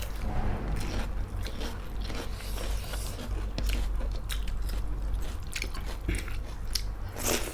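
Close-miked chewing of a mouthful of pork chilli, with many crisp crunches and wet mouth clicks; the crunch is typical of a bite of cooked onion.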